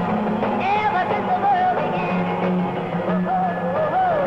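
A rock and roll song: a woman singing over a backing band.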